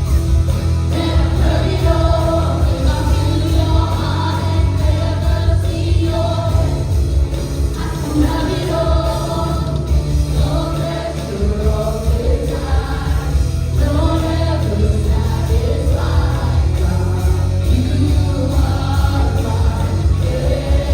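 Contemporary worship music: a band plays while voices sing together, with a steady, full low end and no pause.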